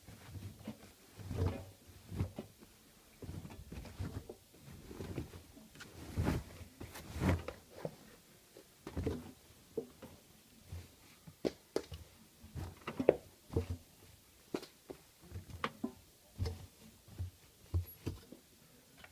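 Irregular knocks and clunks from an AEG Öko-Lavamat washing machine, about one or two a second with quiet between.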